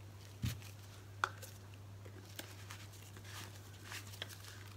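Quiet handling of paint-mixing supplies on a table: a soft knock about half a second in, a sharp click a little after a second, and scattered light ticks, over a faint steady low hum.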